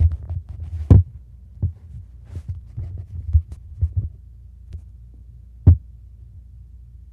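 Domestic cat purring close to the microphone as a steady low throbbing rumble, broken by irregular sharp knocks and bumps, the loudest about a second in and near six seconds in.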